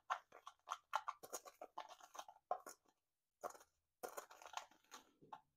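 Dry seasoning (thyme, garlic powder, salt and black pepper) being mixed in a small glass bowl: faint, quick, irregular light scraping and clicking, with a short pause partway through.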